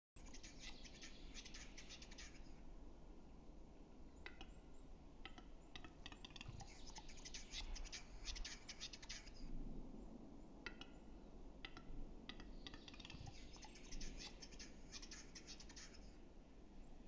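Male western capercaillie's display song: a few dry clicks that speed up into a dense run of scratchy clicking lasting two to three seconds, three times over.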